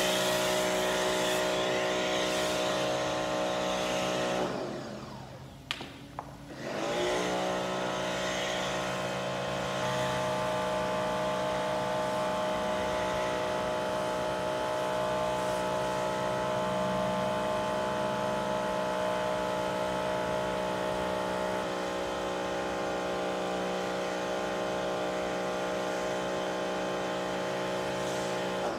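Electric pressure washer running steadily with a motor whine and spray hiss while spraying snow foam. About four seconds in, the motor winds down, two clicks follow, and it starts up again about two seconds later, as when the gun's trigger is released and squeezed again.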